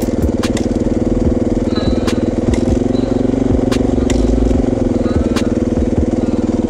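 Dirt bike engine idling steadily. Over it come scattered sharp clicks and a low thump about four seconds in, as a second dirt bike is kicked over on its kick-starter without starting.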